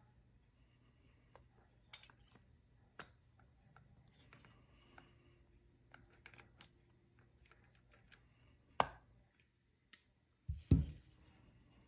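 Small clicks of a spring-loaded needle retainer being worked into the vacuum slide of a Yamaha Grizzly 660 carburetor with needle-nose pliers. One sharp click about nine seconds in is the retainer snapping home, the sign that it is seated right. Two dull knocks follow near the end.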